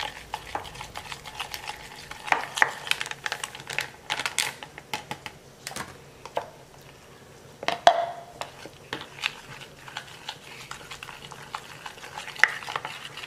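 Metal spoon stirring instant flour and water into a batter in a plastic bowl: irregular clicks and scrapes of the spoon against the bowl, with one louder knock about eight seconds in.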